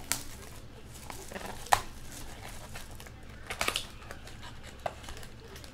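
Trading card packaging handled and opened by hand: a few sharp crackles and crinkles, with a quick cluster of them a little past halfway.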